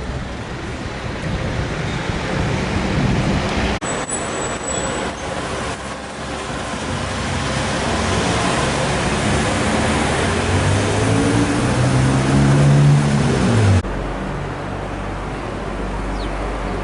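Road traffic noise with a motor vehicle engine running; the engine's pitch climbs from about halfway through and drops away suddenly near the end, leaving a steady low hum.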